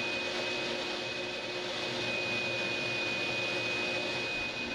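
Vacuum cleaner running steadily with a constant high whine as its nozzle is drawn over a door and its trim, sucking up sanding dust.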